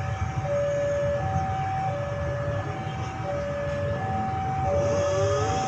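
Level-crossing warning alarm sounding two alternating electronic notes, a higher and a lower, each held about two-thirds of a second, over a steady low rumble.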